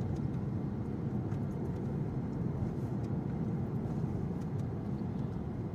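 Steady road noise inside a moving car's cabin: the engine's low rumble and the tyres on a wet road.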